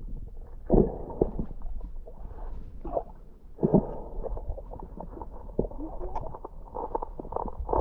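Muffled underwater sound of water moving and gurgling in a river, heard through a submerged camera, with irregular dull knocks and thumps. The strongest come about a second in and just before four seconds.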